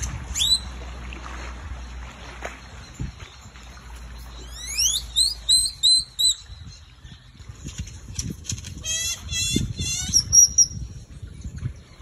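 Male great-tailed grackle singing: a sharp rising whistle, then a run of quick rising whistles about four seconds in, and fast rattling phrases near the end.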